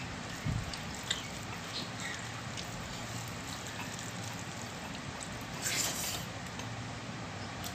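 Soft sounds of eating by hand: fingers mixing rice on a metal plate over a steady background hiss, with a low knock about half a second in and a brief hiss near six seconds.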